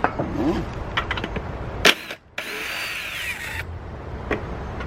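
Cordless drill/driver backing out the screws that hold a lawn mower's recoil starter assembly. It runs in a short burst about two and a half seconds in, with clicks and knocks of the tool against the metal housing.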